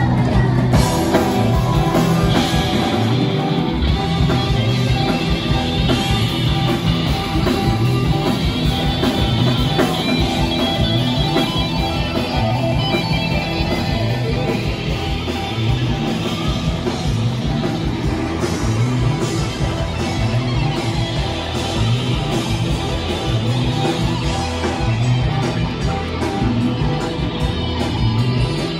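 Live band playing amplified music, with electric guitars and a drum kit over a steady, repeating bass line.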